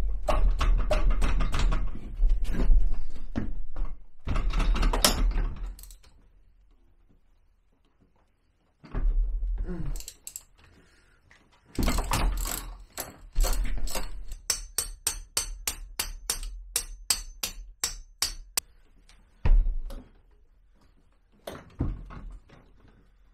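Hand socket ratchet clicking in bursts as bolts are worked loose. Near the middle comes a run of separate clicks at about three a second, and a couple of single knocks of tools or parts follow near the end.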